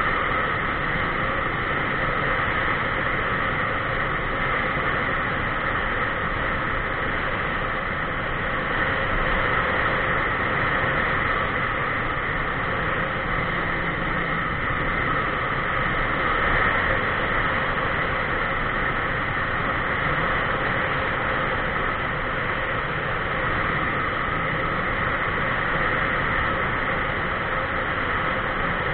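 Steady wind and road noise at a camera mounted on a vehicle cruising along a paved highway, an even rushing noise with a constant hum in it that does not change in pitch.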